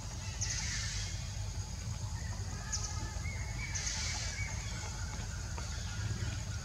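Outdoor ambience: a steady low rumble with short high-pitched hissing bursts roughly every three seconds.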